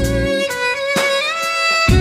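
Instrumental background music: a long held melody note over a bass line, which drops out about half a second in and comes back near the end.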